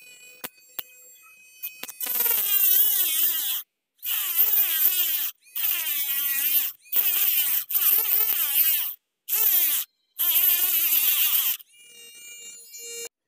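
A small handheld rotary tool with a thin cutting disc cuts through green PVC pipe. It gives a loud, high buzzing whine whose pitch wavers as the disc bites, in several bursts with short breaks. The motor whines faintly while running free before and after the cuts.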